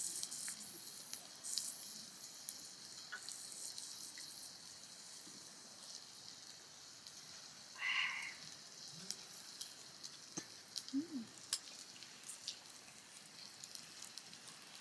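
Beef sizzling steadily on the top grill of a Paseko kerosene heater: a faint hiss with scattered small crackles. A brief louder sound comes about eight seconds in.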